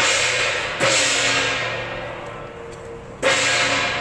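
Temple procession percussion: large cymbals crashing with drums, three hard strokes (at the start, just under a second in and near the end), each ringing on and slowly dying away.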